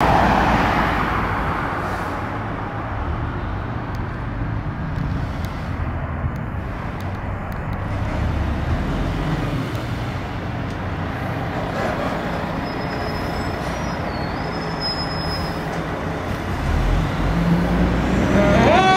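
Fire engine's diesel engine rumbling as it pulls out onto the street. Just before the end a siren starts, rising in pitch.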